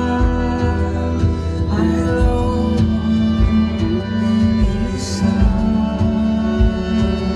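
Loud live band music: sustained chords over a steady kick drum beat.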